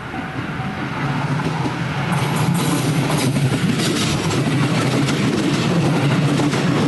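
A JR West electric commuter train approaching and passing close by, its steady low hum growing louder and its wheels clattering over rail joints from about two seconds in. A level-crossing bell rings faintly in the first second.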